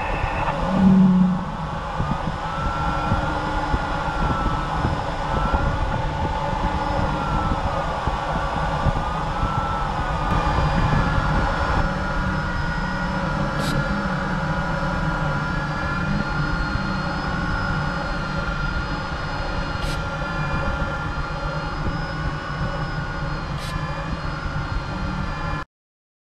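Steady rush of airflow heard inside a glider's cockpit, with a thin electronic variometer tone slowly wavering up and down in pitch. The sound cuts off suddenly shortly before the end.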